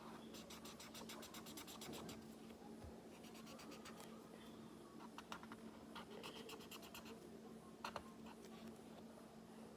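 Coloured pencil scratching on paper in quick back-and-forth shading strokes, faint, in two spells of rapid strokes near the start and again around the middle, with a couple of light taps near the end.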